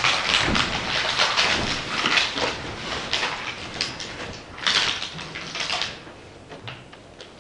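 Stiff paper sheets rustling and crinkling over bedding in a rapid run of scrapes, with a louder flurry about five seconds in, then thinning out near the end.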